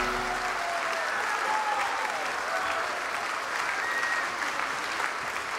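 Audience applauding steadily, the last note of the music dying away in the first half second.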